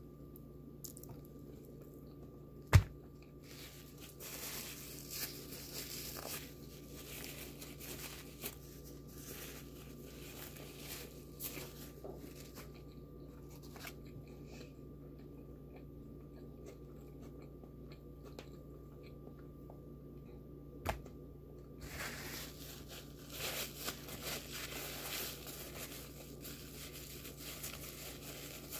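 Close-up chewing and biting of a McDonald's Big Mac, in stretches, over a faint steady hum. A sharp click about three seconds in is the loudest sound, with another about 21 seconds in.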